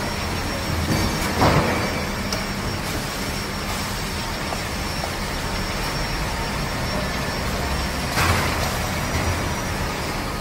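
Tissue roll shrink-wrap packing machine and its heat-shrink tunnel running: a steady machine hum and hiss from the conveyor and tunnel motors, with two brief louder whooshes, one early and one near the end.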